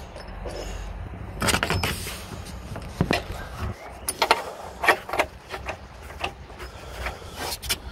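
Irregular metallic clinks and knocks of an oxygen-sensor socket being handled and fitted over a car's exhaust lambda sensor.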